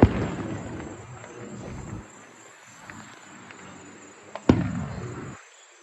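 Fireworks going off: a loud boom right at the start and another about four and a half seconds in, each rumbling away for a second or so, with a few faint crackles between them.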